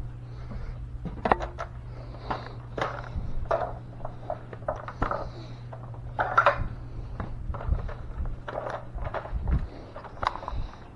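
Irregular knocks, taps and rustles of a body-worn action camera being jostled as its wearer moves about and handles things, over a steady low hum that drops away near the end.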